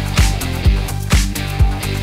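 Background rock music with a steady driving beat, a kick drum about twice a second.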